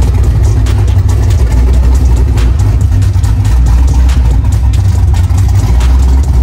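Cammed 427 cubic-inch LSX V8 with a Kong supercharger idling loudly, with an uneven, pulsing beat.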